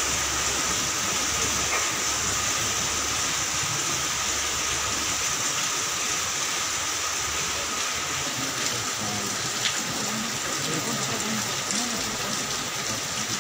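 Steady rain, an even rushing noise throughout, with faint, indistinct voices under it.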